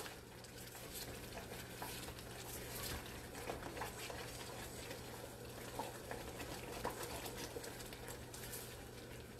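A fudge-like chocolate sugar syrup bubbling at a boil in a stainless saucepan while a spatula stirs it: faint, steady bubbling and sizzling with small scattered pops and scrapes.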